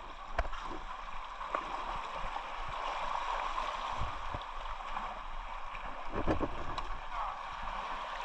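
Steady rush of moving water, with a few faint clicks and knocks scattered through it.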